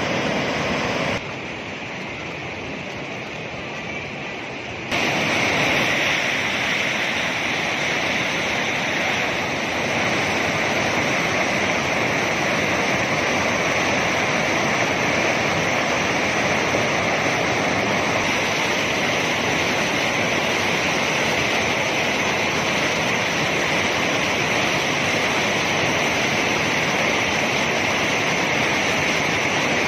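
Rushing mountain river rapids, white water pouring over and around boulders in a steady roar of water noise. The roar drops to a lower level about a second in and comes back louder about five seconds in.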